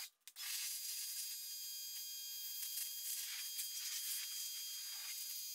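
Faint, steady hiss of a pressure washer's water spray, swelling a little now and then, after a brief dropout at the start.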